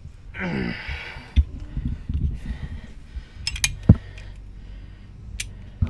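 Metal hand tools clinking and knocking against a shock absorber's lower mount bolt, in sharp separate clicks. Under them runs a low rumble from the bass of a passing car's really loud sound system.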